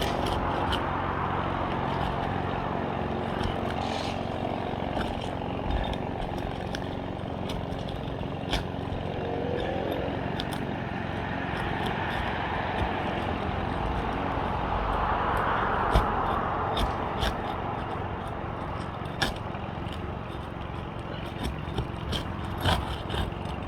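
Asphalt roof shingle being pried and worked loose from its seal strip: scattered sharp clicks and taps over a steady background rumble.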